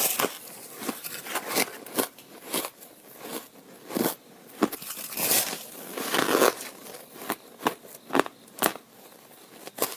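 Ice being bitten and crunched between teeth: a run of sharp, crisp cracks at irregular spacing, roughly one every half second to second.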